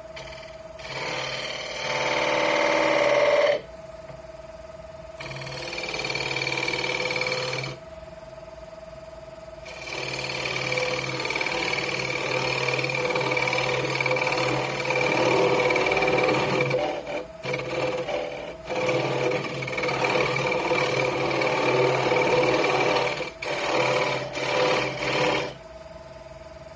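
Woodturning lathe motor humming steadily, with a tool working against the spinning pine bowl blank in loud, rough stretches. Two short passes come first, then a long pass from about ten seconds in that breaks off briefly several times before the lathe is left humming alone near the end.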